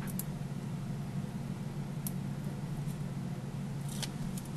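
Scalloped paper layer being handled by hand: a few faint, light clicks and rustles, a couple at the start, one about two seconds in and a short cluster near the end, over a steady low background hum.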